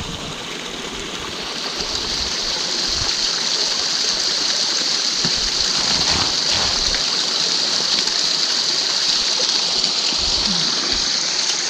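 Running water in a partly iced-over stream, a steady rushing that grows louder over the first couple of seconds and then holds steady.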